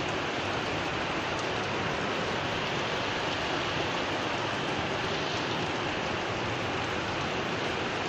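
Heavy rain falling, a steady, even hiss of rain.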